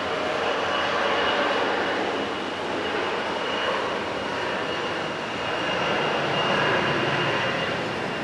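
Bombardier CRJ900 regional jet's two General Electric CF34 turbofan engines at takeoff power: a steady, loud rush with a thin high whine above it, swelling a little about a second in and again near the end.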